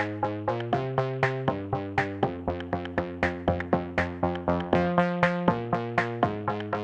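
Background music: electronic synthesizer chords over a quick, steady pulse, changing chord about every second.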